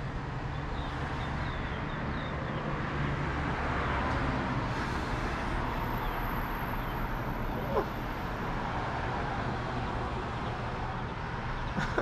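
Steady outdoor background noise of distant road traffic, with a faint, thin high tone lasting about three seconds in the middle.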